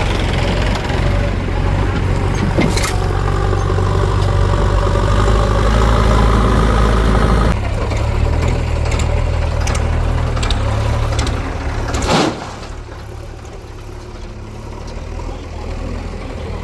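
Diesel engine of heavy earthmoving machinery running steadily, with a few sharp knocks. The sound changes abruptly partway through and drops much quieter about twelve seconds in.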